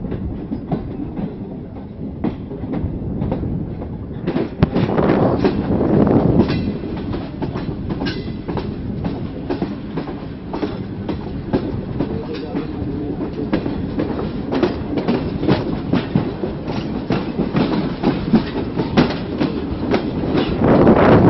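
Passenger coach wheels clattering over rail joints and pointwork as the train pulls out of the station: a rapid, uneven run of clicks and knocks over a steady rumble. The clatter swells louder about four to six seconds in and again near the end.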